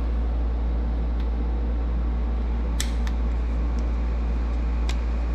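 Steady low machine hum, with a few light clicks as plastic trim tools are handled in a tool-chest drawer: two close together about three seconds in and one near the end.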